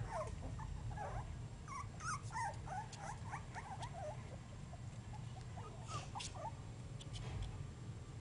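Young Basenji puppies, about three and a half weeks old, squeaking and whimpering in many short, quick high calls. A few sharp scratchy clicks come about six seconds in.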